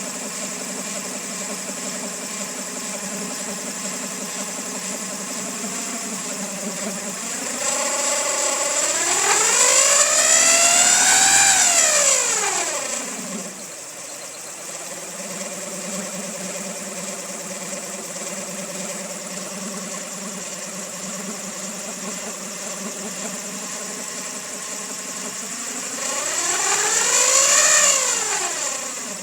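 Honda D16Y8 1.6-litre SOHC VTEC four-cylinder, freshly rebuilt, idling roughly with a steady high-pitched whine. It is revved up and back down twice, a long rev about a third of the way in and a short one near the end, and the whine grows louder with the revs. The owner suspects the cam pulley, the timing belt tensioner or a bearing.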